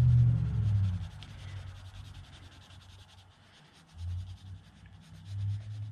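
Graphite pencil scratching back and forth in quick strokes on sketchbook paper, shading in a dark area. A low hum fades out about a second in, and two brief low rumbles come later.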